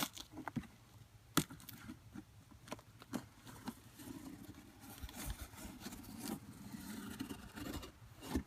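Packaging being handled and opened: a few sharp knocks and clicks early, then steady scraping and rustling as contents are pulled and shifted in the box.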